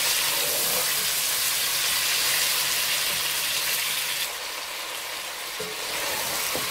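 Chicken pieces sizzling as they fry in hot oil in a pot, being stirred with a wooden spoon. The sizzle is steady and turns a little quieter about four seconds in.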